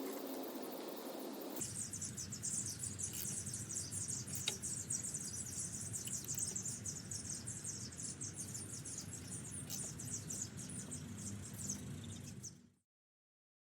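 Crickets chirping in a dense, fast high trill over a low hum; it starts abruptly about a second and a half in and cuts off suddenly near the end.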